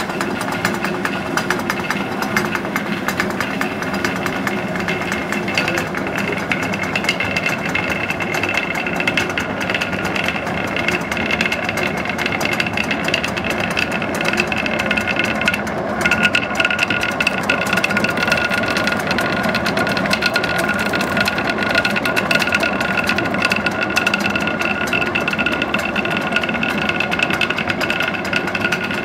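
Water-powered stone grist mill running, its millstones turning and grinding grain into meal with a dense, steady rattling clatter.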